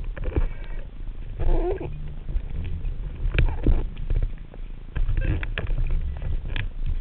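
Underwater recording in very shallow water: a steady low rumble of surge and water movement, with scattered sharp clicks and knocks and a brief buzz about a second and a half in.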